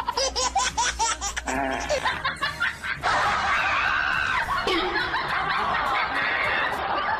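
A person laughing in rapid short bursts, then about three seconds in a louder, continuous mix of laughing and wailing voices takes over.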